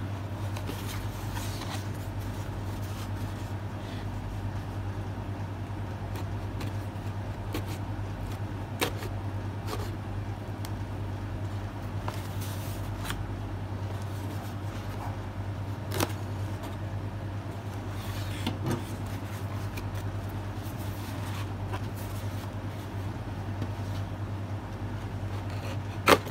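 A kitchen knife cuts through the tape and cardboard of a shipping box, with scattered scrapes and knocks as the box is handled and turned. A steady low hum runs underneath. The sharpest knocks come about sixteen seconds in and just before the end.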